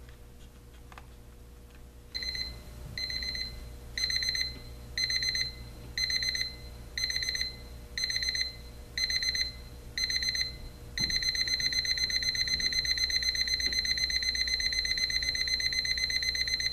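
Elgin 3530E quartz travel alarm clock's electronic alarm sounding. About two seconds in it starts with short bursts of quick high-pitched beeps about once a second, then switches to continuous rapid beeping: the escalating pattern of its ascending alarm.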